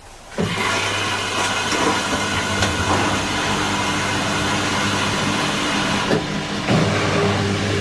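Washing machine starting its cotton 20 °C wash about half a second in: a steady buzzing hum with a hiss of water rushing in as the machine fills. There are a couple of clicks or knocks near the end.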